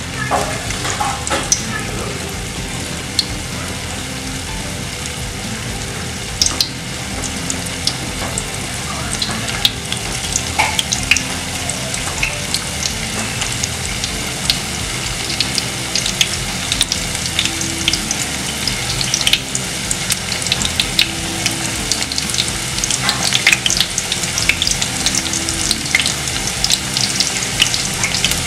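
Batter-coated baby corn pieces deep-frying in hot oil in a kadai: a steady sizzle with frequent crackling pops, growing busier in the second half as more pieces bubble in the oil.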